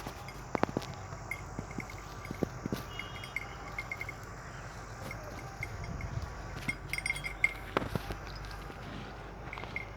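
Outdoor ambience: a steady low background with faint, rapid ticking chirps and scattered sharp clicks and clinks throughout.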